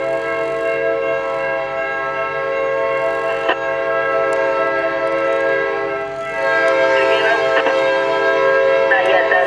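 Diesel freight locomotive air horn on a GE Dash 8-40C, blowing a loud, steady multi-note chord for the grade crossing. It breaks off briefly about six seconds in, then sounds again louder.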